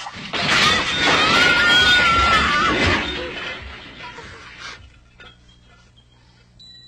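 Loud crash of breaking and shattering, a clattering smash that holds for about three seconds and then dies away.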